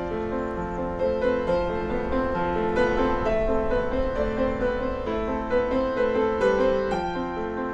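Slow piano music of held, overlapping notes and chords.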